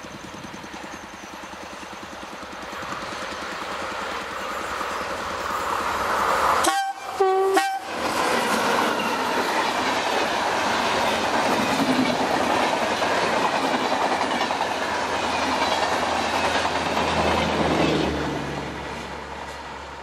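WAM4 electric locomotive approaching at speed and sounding two short horn hoots about seven seconds in. The Shatabdi Express coaches then rush past with wheels clattering on the rails, the noise fading near the end as the train moves away.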